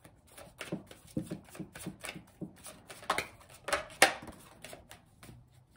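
A deck of tarot cards being shuffled by hand: a run of quick, irregular soft clicks and flicks of cards sliding against each other, with two sharper snaps about three and four seconds in.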